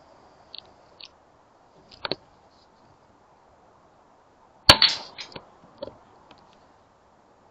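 A single shot from a Daystate Air Wolf pre-charged air rifle firing .177 pellets, a sharp crack about two-thirds of the way through with a short ring-out and a few fainter clicks after it. A fainter click comes about two seconds in.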